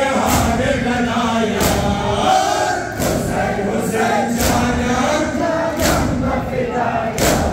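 A large crowd of men chanting a noha in unison, with a loud, sharp collective chest-beat (matam) about every one and a half seconds.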